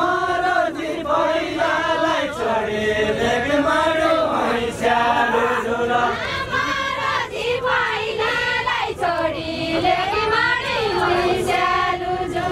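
A group of voices singing a Deuda, the far-western Nepali folk song, together in chorus, in long phrases whose melody rises and falls.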